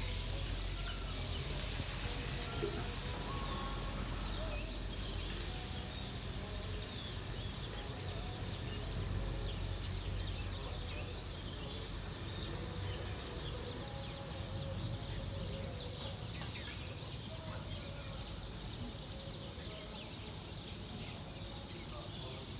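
Small birds giving quick runs of rapid, high-pitched trilled notes four times, over a steady low background rumble.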